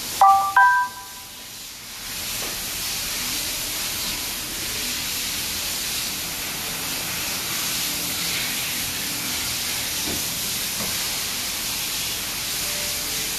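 A short electronic chime of a few rising notes at the start, then a steady hiss like escaping air that holds until the end.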